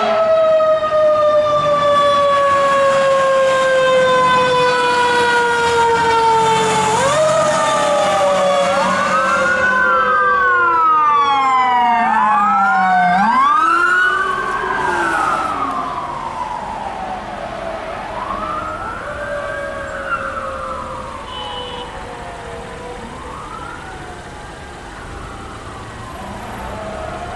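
Sirens of responding fire apparatus, a fire engine and a fire chief's Chevy Tahoe. First one long wail winds slowly down, then several wails overlap, sweeping up and down. About halfway through the sound drops in level, and a single wail keeps rising and falling about every two and a half seconds.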